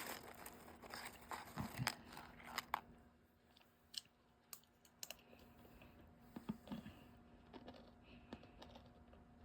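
Crunchy tortilla chips being chewed: a quick run of sharp crunches in the first three seconds, then fainter, scattered crunches.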